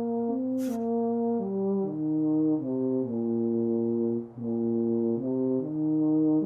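A slow, gentle tune of held notes, about two a second, played in two parts over a low steady drone.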